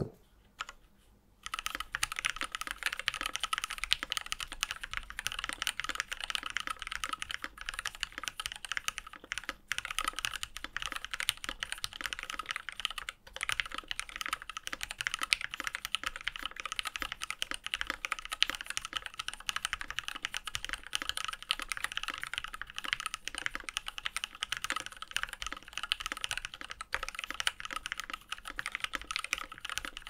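Fast continuous typing on an Alpine65 gasket-mounted mechanical keyboard with lubed JWK Lavender linear switches, a 1.6 mm POM plate, thick bottom gasket, case foam and ePBT keycaps: a dense run of key clacks starting about a second and a half in.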